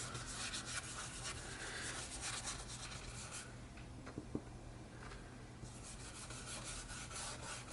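Ink applicator rubbed in repeated short strokes along the cut edges of paper, inking them so no white shows. The strokes thin out for a couple of seconds in the middle, then pick up again.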